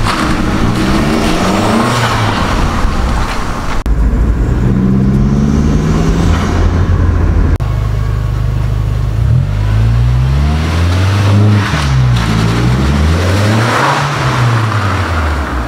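Skoda Octavia Mk1 vRS's turbocharged four-cylinder, fitted with an aftermarket Ram Air intake, revving up and down several times as the car pulls away, its note climbing and dropping with each rev. The sound jumps abruptly twice.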